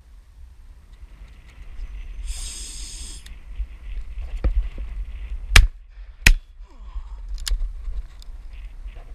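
Two shotgun shots from a Beretta Silver Pigeon 20-bore over-and-under, fired about 0.7 s apart a little past halfway, with fainter reports just before and after. Wind buffets the microphone throughout.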